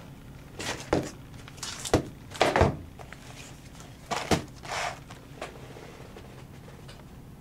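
A sealed trading-card box being handled and turned over on a hard floor: a handful of short knocks and scrapes in the first five seconds, then only a steady low hum.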